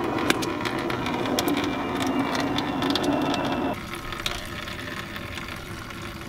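Stale diesel draining in a thin stream from the fuel line of a long-stored Ford 1910 tractor and splashing into a catch container, with small clicks and drips. A louder rushing noise cuts off suddenly just over halfway through.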